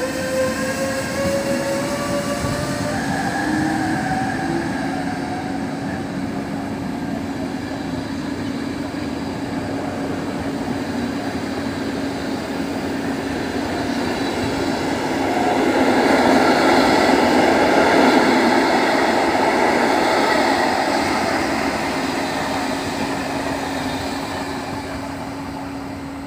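Passenger train passing behind a MÁV class 480 Bombardier Traxx electric locomotive: the locomotive's electric whine rises in pitch over the first few seconds as the train gathers speed, over a steady hum. Then the rolling noise of the coaches' wheels on the rails swells, loudest about two thirds of the way through, and fades as the train draws away.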